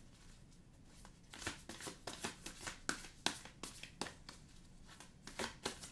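Tarot cards being shuffled and drawn from the deck by hand: a run of irregular short card snaps and flicks, coming in spells.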